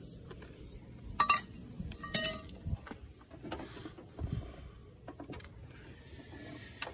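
Two sharp metallic clinks with a brief ring, about one and two seconds in, from a wrench and steel pipe extension knocking against metal in the engine bay. A few soft low thuds follow.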